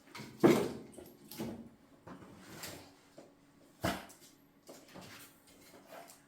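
Split logs being loaded into a wood stove's firebox: a few sharp wooden knocks and thuds, the loudest about half a second in and others spaced about a second apart.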